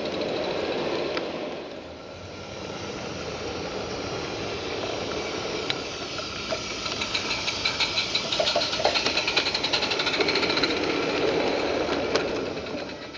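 Roundhouse Fowler live-steam garden-railway locomotive running with a short passenger train, its fast, even exhaust beats and hiss growing loudest as it passes close by over the second half.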